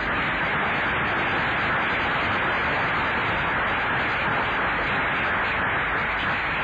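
Steady static hiss with no speech or music over it.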